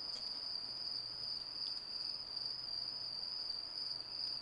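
Crickets trilling in a steady, high-pitched chorus, with a faint low hum underneath.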